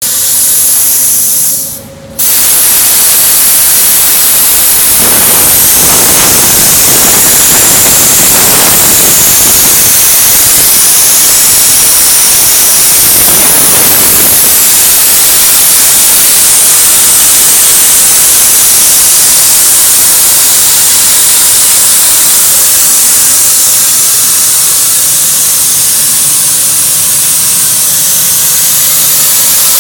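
Plasma arc of a Start-2A plasma cutting machine cutting metal from pre-pierced holes: a loud, steady hiss with a strong high edge. It drops out briefly about two seconds in, then runs on unbroken.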